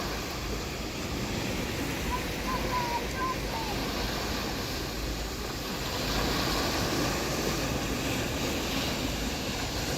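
Sea surf washing onto the beach in a steady rush, swelling a little louder about six seconds in, with a low wind rumble on the microphone. A few faint short high chirps come about two to three seconds in.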